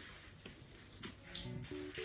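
Quiet background music of soft, short melodic notes moving in steps, with a few faint clicks.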